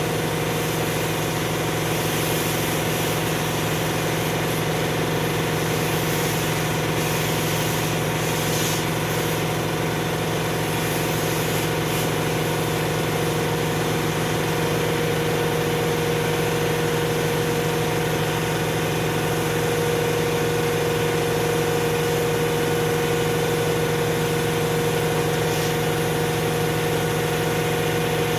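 Canister vacuum cleaner running steadily: a motor whine over rushing air as the hose nozzle sucks lint from a flat knitting machine's needle bed, with a few brief hissy surges in the first several seconds.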